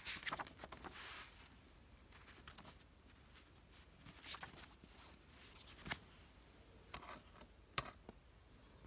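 Faint handling of a DVD set: the paper insert booklet rustling as it is picked up and opened, then scattered light clicks and taps from the plastic case and discs, the sharpest about six and about eight seconds in.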